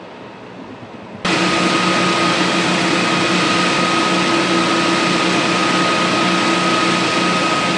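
Steady drone of engine-driven fire equipment running at a fire scene, a constant hum with a steady high whine. It jumps from a quieter background to loud about a second in and then holds steady.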